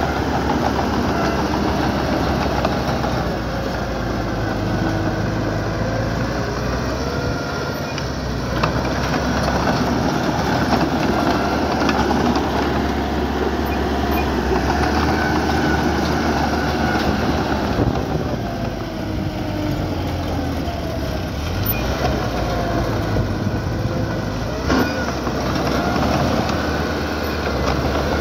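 Small crawler bulldozer working, its diesel engine running steadily with the pitch rising and falling a little in places, along with clanking like its steel tracks. One sharp knock sounds about three-quarters of the way through.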